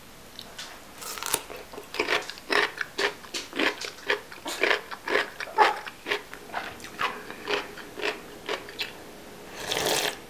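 Close-up crunching of chonggak (ponytail radish) kimchi being bitten and chewed: a steady run of sharp, wet crunches, about three a second, starting about a second in.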